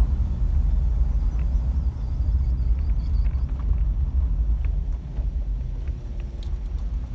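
Steady low rumble of a car driving along, easing off slightly in the last couple of seconds.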